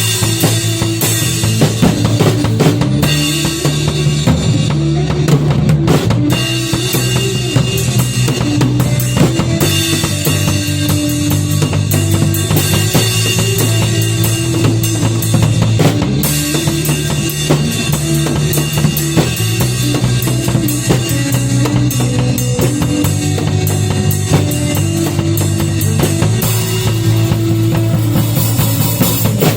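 A band playing music with a drum kit (bass drum and snare) over held bass notes and other instruments, with no words sung or spoken.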